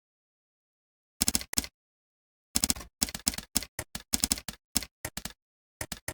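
Typing on a computer keyboard: bursts of quick keystroke clicks, a few about a second in, then a steady run of keystrokes for about three seconds and a few more near the end, with complete silence between bursts.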